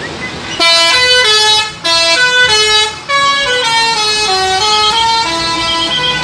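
A musical vehicle horn playing a tune of loud, buzzy held notes that step up and down in pitch.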